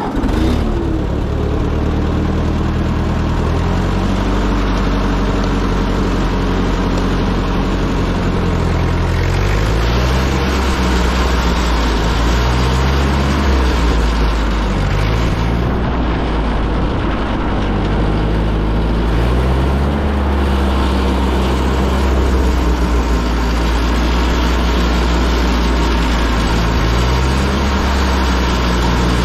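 Ford N-series tractor's four-cylinder flathead engine running, its speed stepping up and down several times as it is driven.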